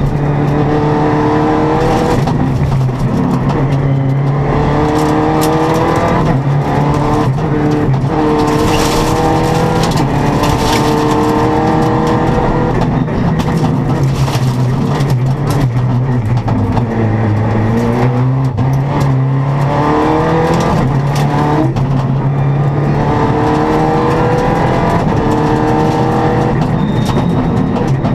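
Rally car's engine driven hard, heard from inside the cockpit. Its pitch climbs again and again as the car accelerates and drops back at each gear change, over a constant rush of tyre and road noise.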